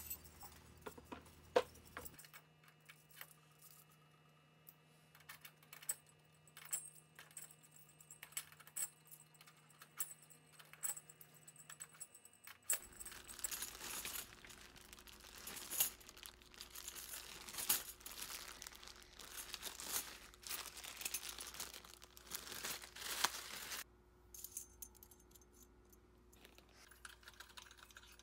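Metal key blanks clinking and tapping against each other and the metal pegboard hooks as they are handled and hung up, with the rustle of plastic key-blank bags; the clinks come in scattered bursts and are busiest in the middle stretch.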